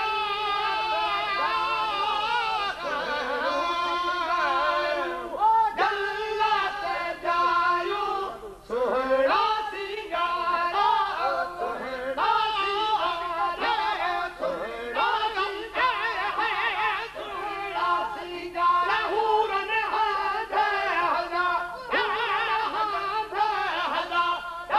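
Singing with musical accompaniment: a wavering, ornamented melody over a steady held drone underneath.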